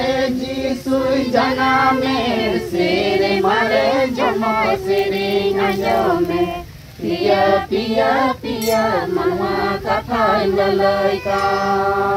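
A group of women singing a Santali lagre dance song together in long sung phrases, with hand drums played alongside.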